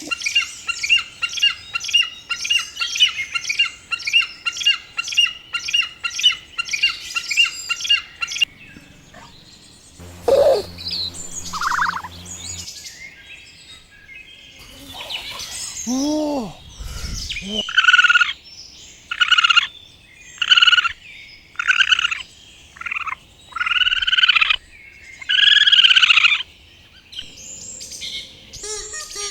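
A series of bird calls: a fast run of repeated high chirps, several a second, for about eight seconds, then after a pause a string of loud, separate arched calls, roughly one every second and a half.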